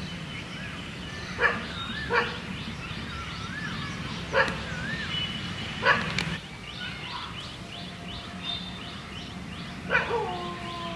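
A dog barking in single sharp barks, about five times with irregular gaps. The last bark runs into a long falling call. High chirps and warbling whistles carry on beneath.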